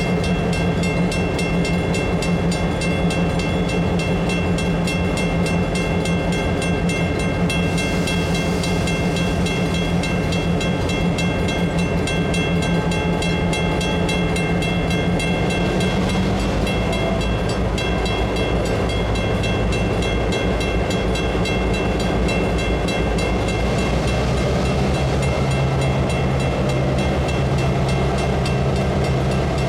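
Diesel locomotive engine running as a short-line freight train slowly pulls out. The engine hum shifts lower about halfway through and changes again near the end, with a steady high whine above it.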